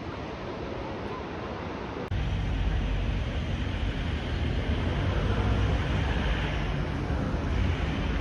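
Outdoor ambient noise at night: a steady hiss from the beach for about two seconds, then an abrupt cut to a louder, deeper rumble of street ambience with wind on the microphone.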